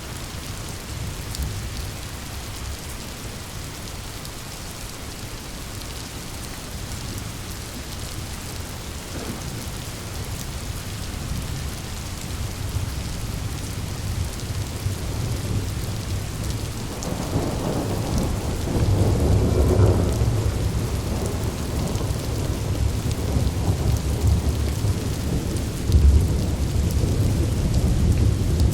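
Steady heavy rain, with thunder rumbling in low about two-thirds of the way through, swelling to a peak and rolling again near the end.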